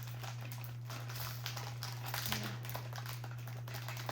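Plastic Peeps packaging being handled and pulled open: irregular small crinkles and clicks, over a steady low electrical hum.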